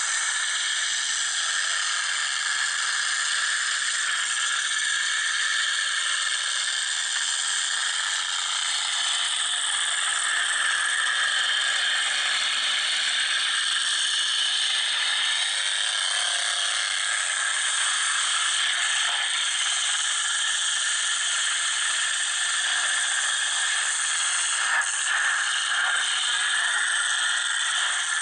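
Demolition derby pickup trucks' engines running hard across the arena, a steady harsh high-pitched din, with a short crunch of a hit near the end.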